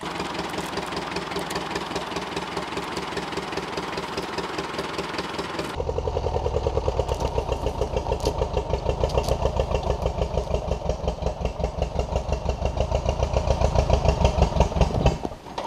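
Small 1948 Case VA tractor's four-cylinder engine idling steadily. About six seconds in it comes in louder with a rapid, even pulsing beat as the tractor drags a boulder on a chain. The engine sound cuts off just before the end.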